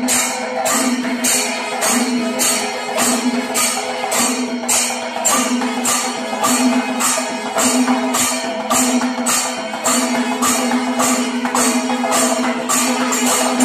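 Traditional festival music: a metallic clash struck on a steady beat, about two and a half strokes a second, over a steady held tone.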